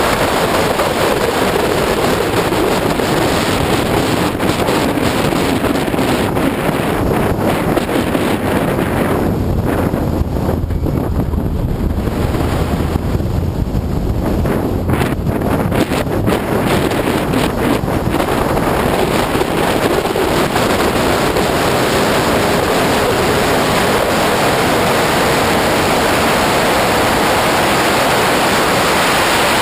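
Wind buffeting the microphone of a camera mounted on an Opel Speedster at track speed, over the car's engine and tyre noise. The rush thins out for several seconds in the middle as the car slows through a bend, then builds again.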